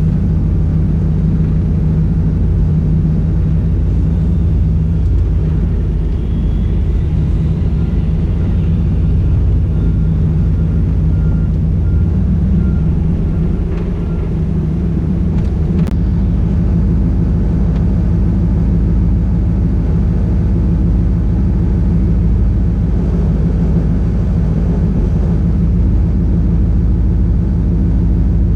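Steady low drone of the 1993 Chevy Camaro Z28's LT1 V8 and road noise heard from inside the cabin, muffled, with a single sharp click about sixteen seconds in.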